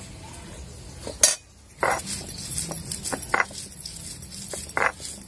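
Metal kitchen utensils clinking and knocking against pots and dishes, a handful of separate sharp knocks with the loudest about a second in.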